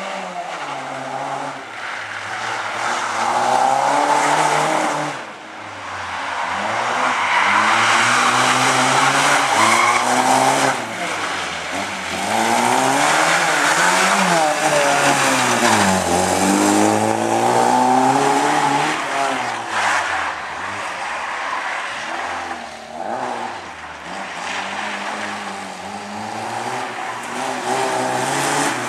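A Lada saloon's engine revving high and dropping back again and again as it is driven hard through tight turns, with tyres squealing through the corners. There is a brief lull about five seconds in.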